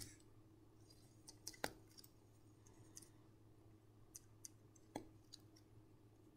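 Near silence: a pen writing on paper, giving a few faint scattered ticks as its tip meets the page, over a low steady hum.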